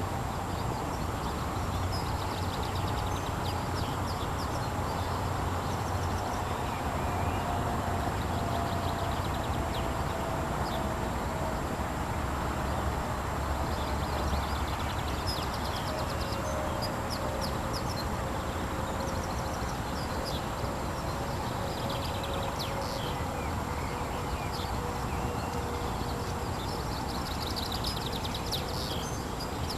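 Outdoor background of steady wind-like hiss and low rumble, with scattered bursts of rapid high chirps and a faint tone that falls slowly in pitch across the whole stretch.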